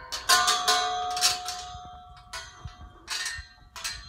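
Galvanised steel pipe gate and its chain clanking as the gate is handled, about four metallic clangs. The first strike rings on for over a second.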